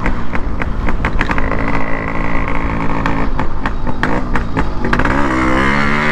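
Yamaha RX100's two-stroke single-cylinder engine running under way, with scattered sharp crackles. About five seconds in, the engine note dips and then climbs again.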